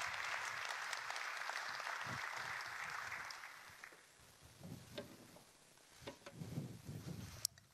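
Audience applause dying away about three and a half seconds in, followed by faint clicks and knocks with one sharp click near the end.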